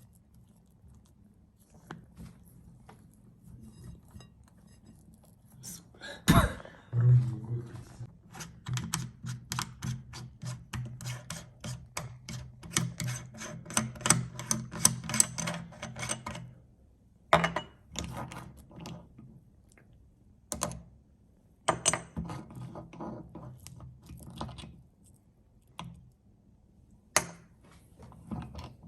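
Meat grinder crushing food, a dense run of crackling clicks and crunches over a low hum, with a loud knock about six seconds in. The crackling thins out to scattered clicks after about sixteen seconds.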